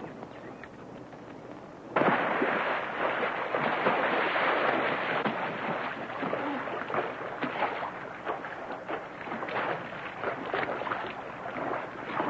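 Loud splashing and churning of rough water around a wrecked biplane floating in the sea. It starts abruptly about two seconds in, is rough and crackling, and slowly eases.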